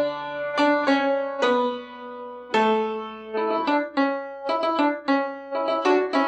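Piano playing an instrumental passage: chords and single notes struck one after another, each ringing and fading before the next.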